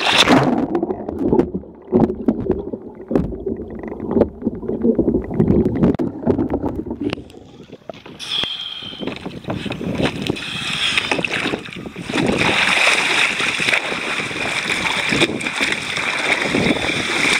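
A splash as a kayaker's chest-mounted camera goes under the water in a capsize, then about eight seconds of muffled underwater bubbling and knocking. About eight seconds in, the microphone comes back up into the air and splashing, sloshing water and wind noise follow as the paddler clambers back onto the sit-on-top kayak.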